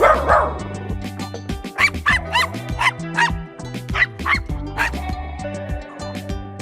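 Puppy barking once at the start, then yipping and whimpering in a run of short, high calls that bend up and down, over background music with a steady bass line.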